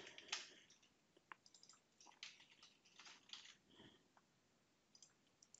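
Faint computer keyboard typing: an irregular scatter of soft key clicks.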